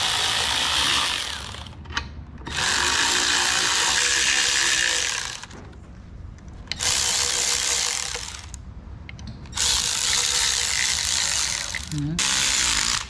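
Bolts being run in with a ratchet, fastening an engine mount to a TDI engine block: about five spells of ratcheting, each one to three seconds long, with short pauses between.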